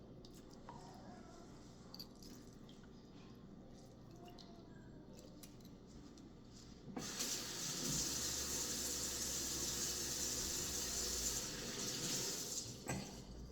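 Kitchen tap running in a steady stream for about six seconds, starting about halfway through and then shut off; before it, only a few faint clicks.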